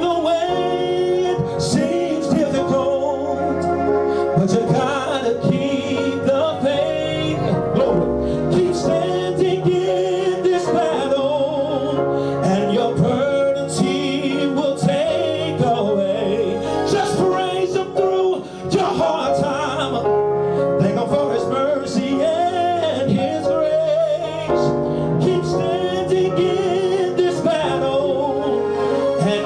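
A man singing a gospel song into a microphone, with wavering runs, over a steady music backing of held chords.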